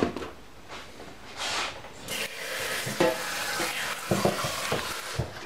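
Kitchen handling sounds at a counter and sink: a soft, high hiss through the middle, with a click about three seconds in and a few light knocks just after four seconds.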